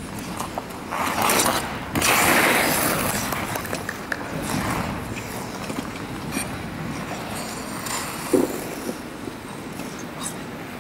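Ice skate blades scraping across the ice of a rink. The loudest scrape comes about two seconds in and fades over the next two seconds, over a steady background hiss.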